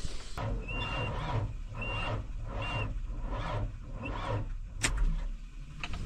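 Fendt tractor's cold diesel engine being cranked by its starter, turning over slowly with a labouring beat about once every 0.8 s and not catching: the battery is too weak. Three short high beeps sound in the first three seconds.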